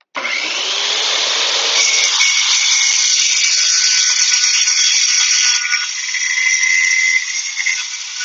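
WEN track saw switched on, its motor whining up to speed within about a second. It then runs steadily as the blade cuts along the guide track through a sheet of hardboard.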